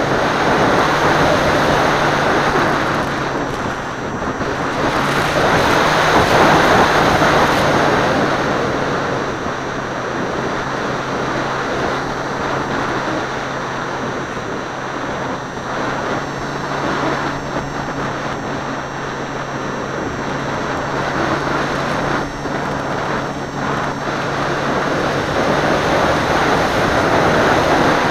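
Wind rushing over the onboard camera of a radio-controlled model seaplane in flight, with the steady hum of its motor underneath. The wind noise swells about six seconds in and again near the end.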